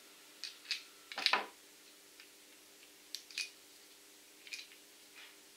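Light clicks and taps of small plastic and metal parts as the electromagnet coil of a CO2 solenoid valve is fitted onto the valve's stem and body: a cluster of clicks about a second in, then a few scattered ones.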